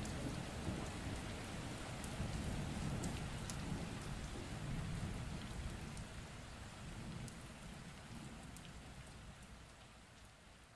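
Steady rain falling, with a low rumble beneath it and scattered sharp drop ticks, gradually fading out over the second half.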